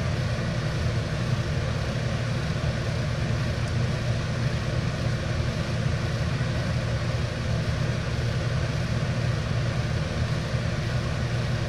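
Steady low mechanical drone from a running machine, with a few faint steady tones over it.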